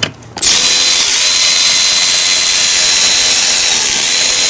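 Power tool with a 7 mm socket spinning out an ignition coil hold-down bolt on a Ford E350's 5.4 L V8. It starts about half a second in and runs steadily with a high whine, dipping in pitch a couple of times.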